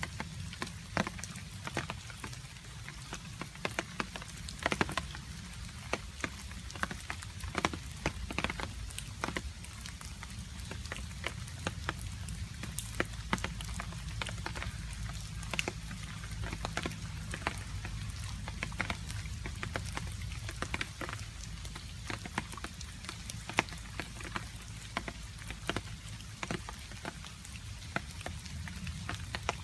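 Rain falling, with water drops dripping in many irregular sharp ticks over a steady low rumble.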